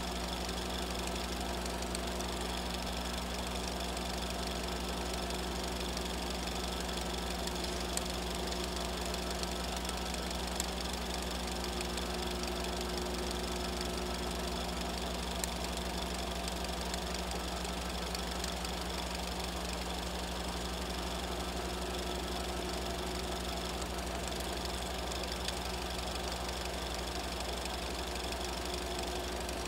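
Steady mechanical hum and hiss of a running film projector, with a few faint clicks and no change in level.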